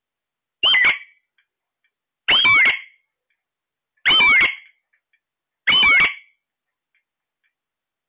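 Alexandrine parakeet giving four loud calls, evenly spaced about every second and a half to two seconds, each with a pitch that swoops up and down.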